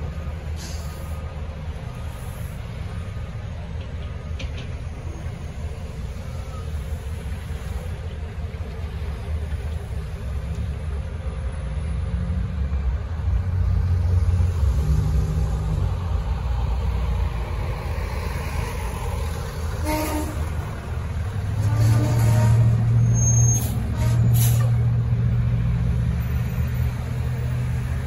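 Road traffic crossing the tracks: diesel trucks and cars give a continuous low engine rumble that swells twice as heavy trucks pull through. A few short sharp sounds come about twenty seconds in and again a little later.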